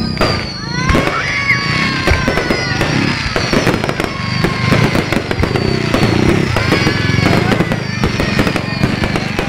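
Fireworks going off in quick succession: a steady stream of sharp bangs and crackles, with several whistling shells gliding up and down in pitch.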